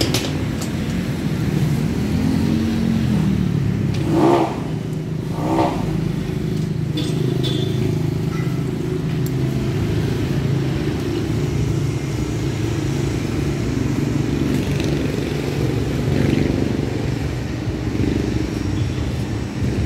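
Steady running of motor vehicle engines, with two short louder sounds about four and five and a half seconds in. A few light clicks come through on top.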